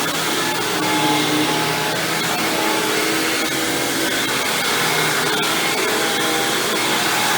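Hoover WindTunnel Supreme upright vacuum cleaner running steadily while vacuuming, its motor noise and hum holding level with slight shifts in pitch.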